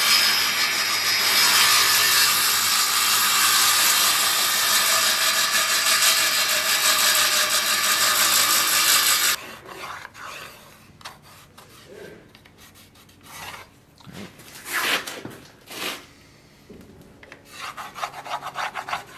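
Table saw ripping a thin wooden board lengthwise, a loud steady mix of motor hum and blade noise, cut off suddenly about nine seconds in. After that come quiet knocks and rubs of a wooden board and knife blade being handled, then a pencil scratching along the wood near the end as the blade's outline is traced.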